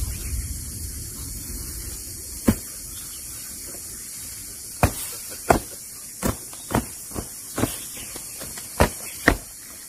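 A series of sharp knocks, one alone and then eight more in quick, uneven succession, over a steady background hiss.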